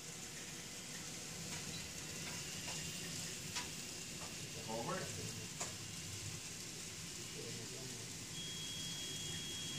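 Model freight train rolling along layout track: a steady hiss with a few faint irregular clicks from the wheels. A thin high whine starts near the end.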